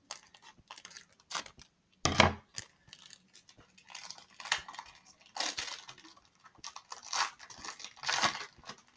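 Plastic toy packaging being torn open and crinkled by hand: irregular tearing and rustling, with the loudest rips about two seconds in and again near the middle and the end.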